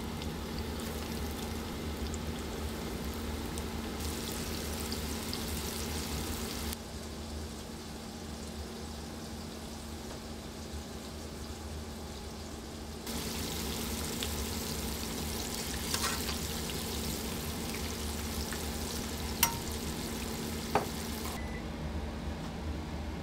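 Battered fish frying in hot oil in a cast-iron skillet: a steady sizzle with crackles that gets louder and quieter a few times. Near the end there are two sharp clicks.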